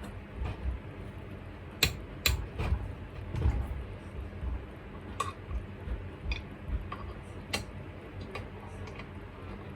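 Irregular metallic clicks and taps of hand tools working on a disassembled Honda GX110 engine, as the connecting rod is being taken apart. The sharpest clicks come in a cluster about two to three and a half seconds in.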